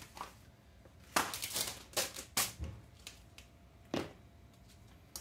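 Manuals, a plastic bag of parts and rubber tires being handled and dropped into a cardboard box: a run of short paper-and-plastic rustles and clatters, a low thump, then a sharper knock about four seconds in.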